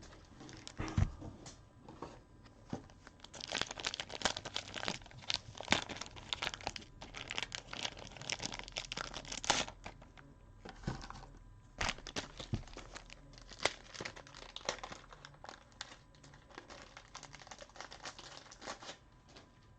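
Plastic packaging crinkling and tearing in irregular crackles as a fresh pack of penny card sleeves is opened and handled, busiest in the first half and thinning out toward the end.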